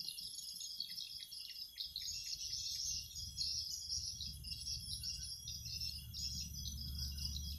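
Insects chirring in a steady, fast-pulsing chorus, with a brief run of short chirps in the first couple of seconds and a low rumble building from about three seconds in.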